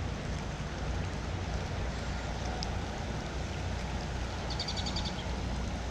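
Steady rain hiss with a low rumble underneath, and a short run of high chirps about four and a half seconds in.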